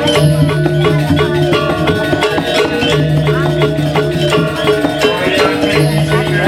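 Balinese gamelan playing dance accompaniment: bronze metallophones and gongs ringing over a steady stream of quick percussion strokes.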